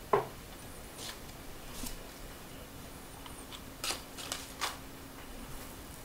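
Quiet room tone with a few faint, scattered clicks and rustles, the clearest three close together near the end, and a faint steady low hum from about two seconds in.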